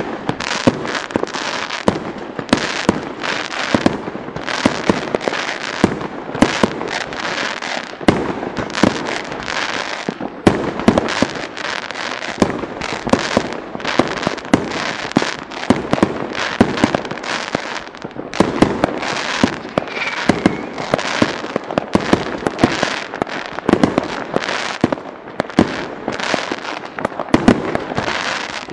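Fireworks display: aerial shells bursting in rapid, overlapping bangs and crackles that never let up.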